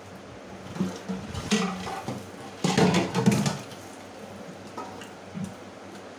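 Dishes being washed by hand in a stainless-steel sink: a pan scrubbed and steel utensils knocking and clattering in several short, irregular bursts, the loudest about three seconds in.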